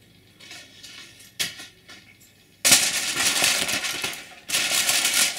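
Aluminium foil crinkling loudly as it is pulled back from a baking dish, in two spells of about a second and a half and a second. Before that come a few faint rustles and one sharp click.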